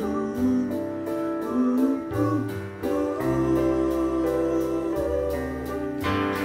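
Live band music in an instrumental stretch of a slow song: gliding melodic lines over held chords and bass notes, with the band coming in fuller and louder near the end.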